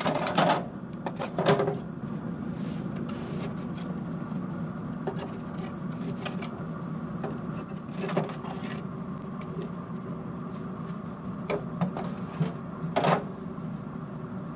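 Steel cooking grate and flame-broiler slide plate of a Pit Boss pellet grill clanking as they are lifted, slid and set back, several sharp metal knocks with the loudest at the start and near the end. Under them runs the grill's steady fan hum as it heats up toward searing temperature.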